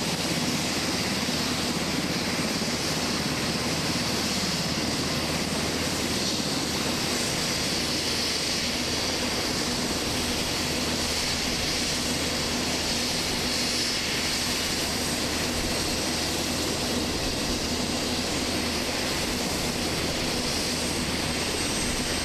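UH-60 Black Hawk helicopter's turboshaft engines running steadily on the ground with a high whine, its main rotor turning.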